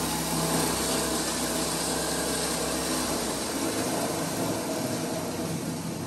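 Cumberland 12 x 16 plastic granulator running on its 7.5 hp three-phase motor: a steady low hum under a dense mechanical rattle. A little over three seconds in the low hum drops out, and the rest of the sound slowly fades.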